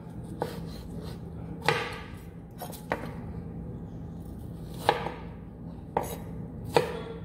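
A kitchen knife chopping tomatoes on a cutting board, about six separate strokes roughly a second apart, over a faint steady low hum.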